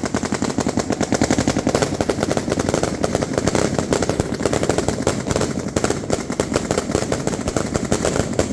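Firework battery firing a continuous, very rapid string of sharp bangs, many a second, typical of a rapid-fire finale cake such as Argento's "Rapid Thunder".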